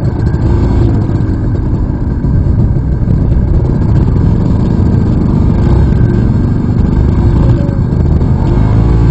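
Aprilia RS 125 two-stroke single-cylinder motorcycle running under way, largely buried in a heavy rumble of wind on the onboard camera's microphone.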